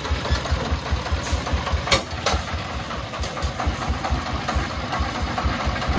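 Single-cylinder diesel engine of a three-wheeled công nông farm truck idling with a rapid, even chug. A couple of sharp clicks about two seconds in.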